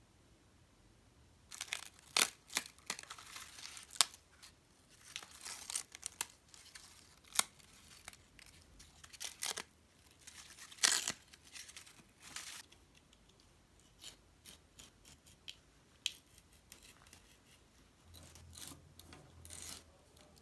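Paper being torn in a series of short, irregular rips, with some crinkling in between.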